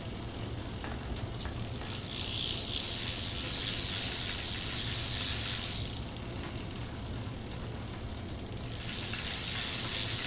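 10-speed bicycle's rear wheel and freshly repaired chain spun by hand, the freewheel ticking rapidly, in two spins: one starting about a second and a half in, another near the end. It is a check that the mended chain runs through the gears properly.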